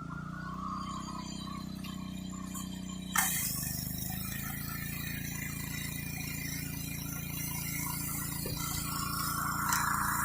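Gas-engine pressure washer running steadily. About three seconds in, the spray starts suddenly and the high-pressure water hisses on from there.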